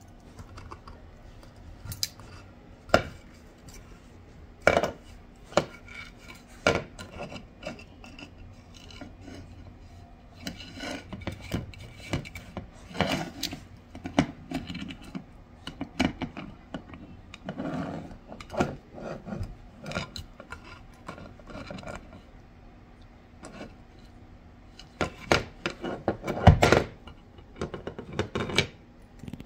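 German shepherd puppy gnawing on a moose antler paddle: teeth rasping and scraping on the hard antler, with irregular sharp clacks. The activity is busiest in the middle and near the end.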